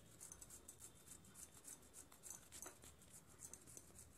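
White radish being grated by hand on a stainless steel grater: faint, rhythmic scraping strokes, about three a second.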